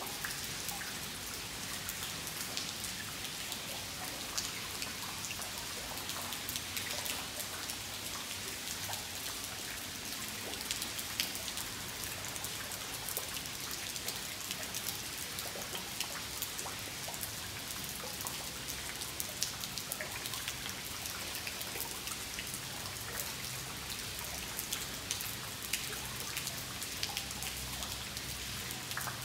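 Steady rain falling on stone paving: a constant hiss dotted with many small ticks of individual drops.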